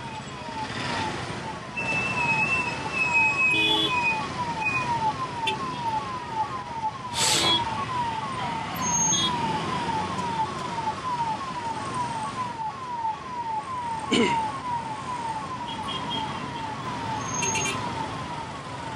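Ambulance siren sounding through heavy traffic: a short falling tone repeated rapidly, about two to three times a second, over the noise of engines and traffic.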